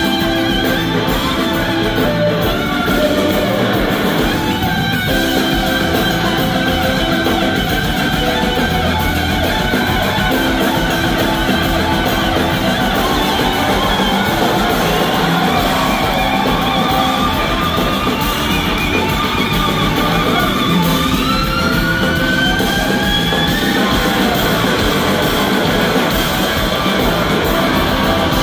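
Live rock band music: a lead electric guitar solo on a red SG-style guitar over drums and bass. The guitar makes long rising glides in pitch about two-thirds of the way through.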